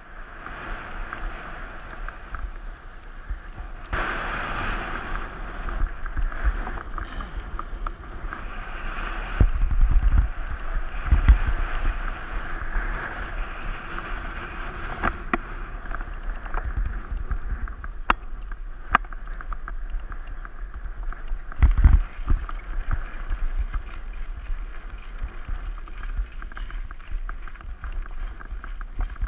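Mountain bike ride picked up by a GoPro Hero 3: steady tyre rolling and wind noise on gravel, with scattered rattles and clicks. Heavy thumps from bumps come about ten seconds in and again near twenty-two seconds.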